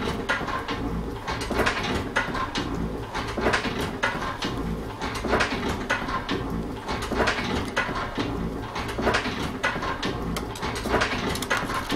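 Paperboard candy carton being creased and folded by hand, making crisp clicks and rustles, over a low rhythmic clatter that repeats about every two seconds.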